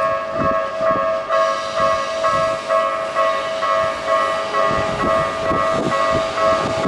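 Japanese railway level-crossing warning bell ringing steadily, a repeating electronic ding at about two and a half strikes a second. Under it, low irregular thumps and rumble from a Keisei 3400 series train at the crossing.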